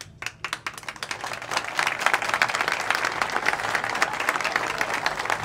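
Audience applauding: a few scattered claps at first, filling in after about a second and a half to steady applause.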